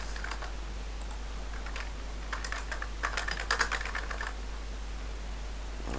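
Typing on a computer keyboard: a few short runs of keystrokes, the busiest from about three to four seconds in, over a low steady hum.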